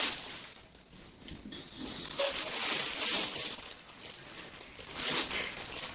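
Exam-table paper liner being grabbed and torn by a baby's hands, crinkling and rustling in uneven spells.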